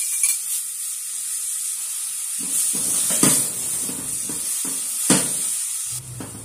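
Diced onion sizzling in melted butter in a stainless steel saucepan, with a silicone spoon stirring and scraping across the pan's bottom and knocking sharply against it a few times. Near the end the sizzle drops away and a low hum comes in.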